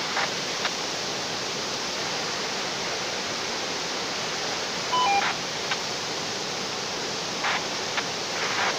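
Steady rushing of floodwater from a flash flood. A brief electronic beep sounds about five seconds in, and there are a few faint clicks.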